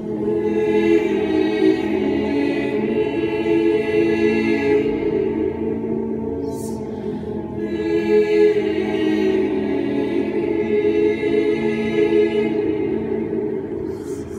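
Mixed choir singing a cappella, holding sustained chords in two long phrases, each ending with a brief hiss.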